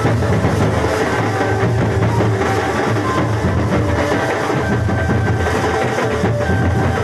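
A band of wedding-procession drums, large barrel drums and flat drums beaten with sticks, plays a loud, dense, continuous rhythm for dancing. A few held melodic notes sound above the beat.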